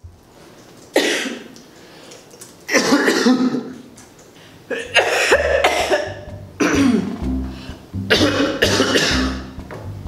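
A person coughing: five bouts of coughs, a single cough about a second in and then fits every second or two. Background music with low bass notes comes in about halfway through.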